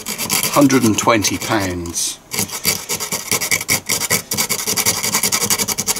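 Green abrasive pad scrubbing rapidly back and forth over a circuit board's contact pads, a dry rasping rub, cleaning off battery-acid corrosion. It starts about two seconds in.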